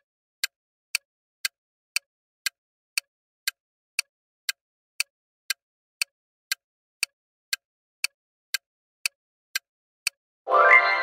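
Quiz countdown timer's ticking sound effect: sharp, even ticks about two per second for ten seconds. Near the end a louder ringing sound effect with several tones marks time running out, then fades.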